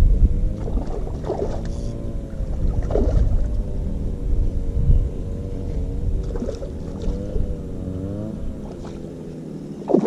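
An engine drones steadily over a low rumble, its pitch wavering and bending slightly, with a few knocks.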